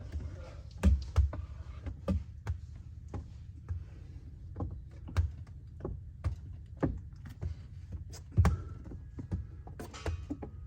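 Irregular light knocks and taps, about one or two a second, over a steady low hum.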